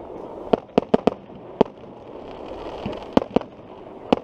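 Aerial fireworks bursting: about eight sharp bangs at irregular intervals, several in quick succession in the first second and a half, over a steady background hiss.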